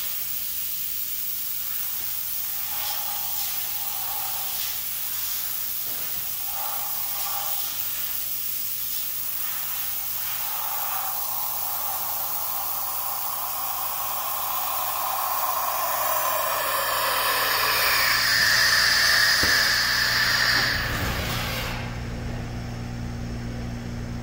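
Haas EC-630 horizontal machining center's pallet changer cycling over a steady hiss, with a few short mechanical sounds at first. In the second half a machine whine swells, is loudest shortly before it cuts off sharply, and a low hum remains.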